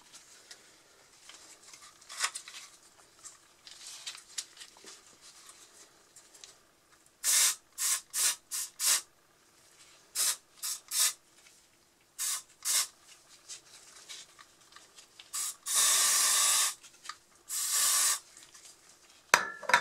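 An Axe aerosol deodorant can sprayed in about a dozen short hissing bursts, starting about seven seconds in, with one longer burst of about a second near the end.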